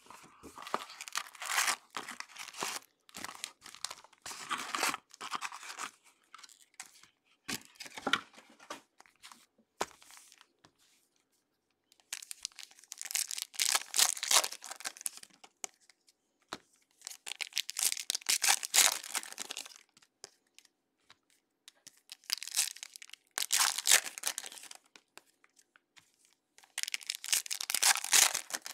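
Foil trading-card pack wrappers being torn open by hand, one pack after another: repeated bursts of tearing and crinkling lasting a second or two each, with short quieter pauses as the cards are pulled out.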